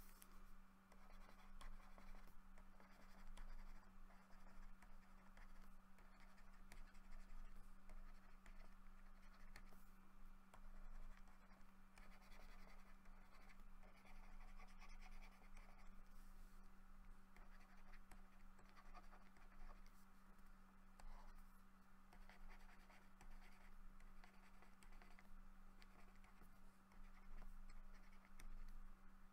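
Faint scratching of a stylus moving over a graphics tablet while digital brush strokes are made, over a steady low electrical hum.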